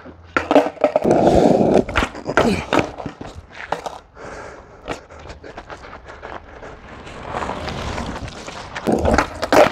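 Skateboard on asphalt: wheels rolling and the board knocking against the ground many times as tricks are tried, with a loud clack near the end.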